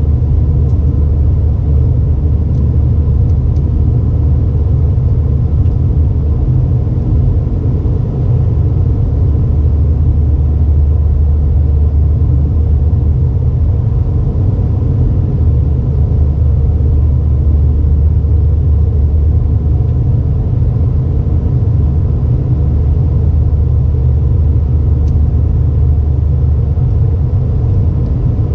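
Cabin noise of an Airbus A320: a loud, steady low rumble with a faint steady hum above it, unchanging throughout.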